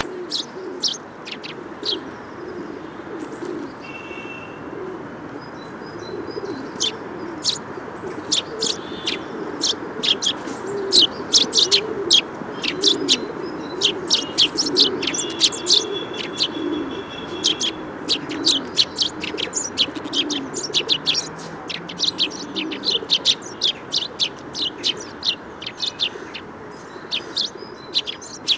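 Small birds chirping: a quick, irregular run of short, high chirps, busiest in the middle, over a steady outdoor hiss.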